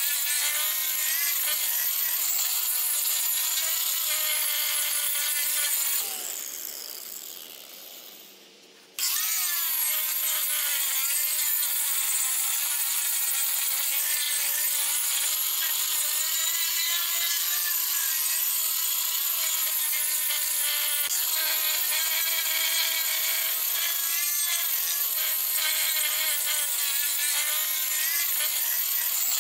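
Corded angle grinder running at full speed with its disc grinding the wooden top of a log chopping block: a steady high whine with scraping. About six seconds in it is switched off and winds down, sinking in pitch over about three seconds, then is switched on again abruptly, spins back up and carries on grinding.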